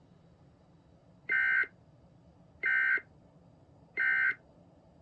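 Emergency Alert System end-of-message signal: three short digital data bursts from a SAME encoder, about a second and a half apart, marking the end of the alert.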